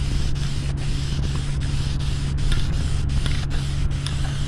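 Aerosol spray paint can hissing as paint is sprayed onto a truck's mesh grille, with a steady low hum underneath.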